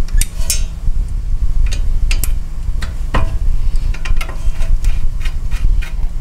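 Steel spanner and hand tools working the upper ball joint nut of a Land Cruiser 200's front suspension as it is loosened: a run of irregular sharp metallic clicks and taps over a steady low rumble.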